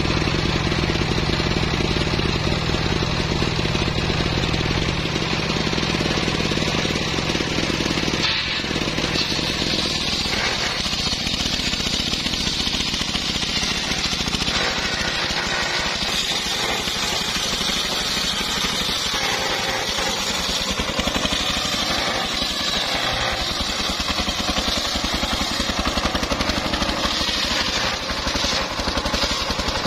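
Homemade engine-driven circular saw bench ripping teak: the engine runs steadily under load while the big blade hisses through the wood. The sound changes abruptly about nine seconds in, and the cutting hiss is stronger after that.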